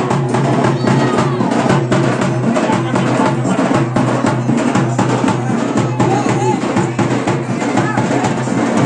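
Loud, fast, dense drumming at a Muharram procession, strokes following one another without a break.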